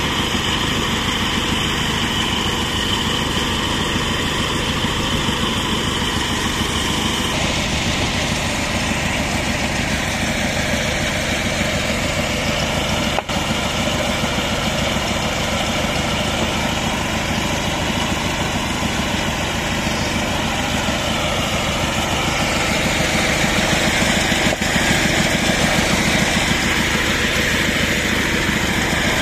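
Engine of a portable horizontal bandsaw mill running steadily. A high whine drops out about seven seconds in, and there is a single sharp tick about thirteen seconds in.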